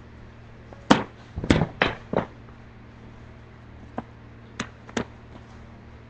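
Quad roller skates knocking and clattering on a hard floor: a quick run of four sharp knocks about a second in, then three lighter single knocks spaced out later.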